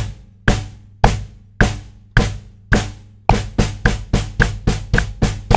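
Bass drum played with a double pedal, right and left beaters alternating, each stroke struck together with the snare (a Dixon Fuse Maple kit with a Ludwig Supraphonic snare). The strokes come evenly at about two a second, then double to about four a second about three seconds in.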